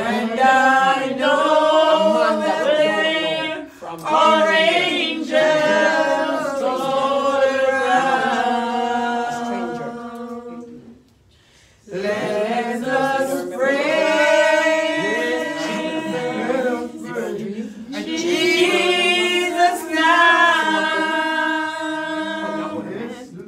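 Unaccompanied singing in long, held phrases, breaking off briefly about eleven seconds in and then starting again.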